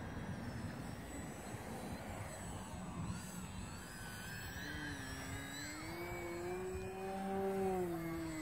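Radio-controlled park-flyer biplane's motor and propeller droning in flight. About halfway through the pitch climbs and it grows louder, peaking near the end, then the pitch drops.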